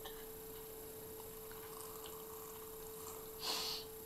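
A faint, steady electrical hum at one pitch throughout. About three and a half seconds in comes a brief breathy hiss at the mouth as the sports bottle is lifted to drink.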